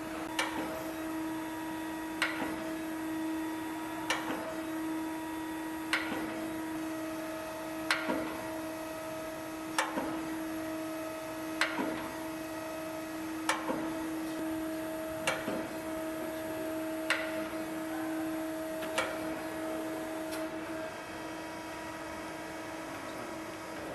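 Hydraulic surface grinder running: a steady machine hum with a sharp knock about every two seconds, fitting the worktable reversing at each end of its stroke. The hum drops away near the end.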